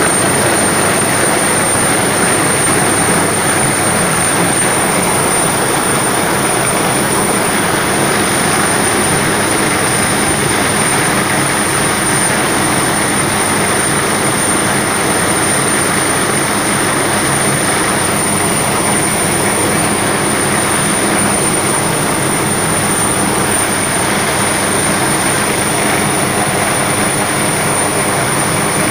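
Search-and-rescue helicopter hovering close by: steady, loud rotor and turbine noise with a high steady whine running through it.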